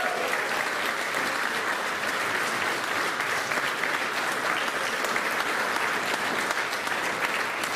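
A crowd of guests applauding, many hands clapping at a steady level throughout.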